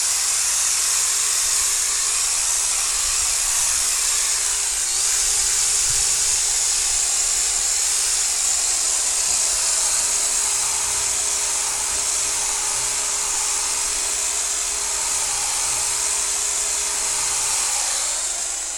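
Electric car polisher running steadily, its pad buffing cutting compound on a painted body panel: a steady hiss with a faint motor whine underneath, winding down near the end.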